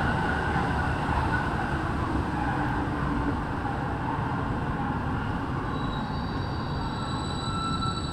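Santiago Metro NS-16 rubber-tyred train running through the tunnel, heard from the driver's cab as a steady rumble. About six seconds in, thin high-pitched whines set in and hold.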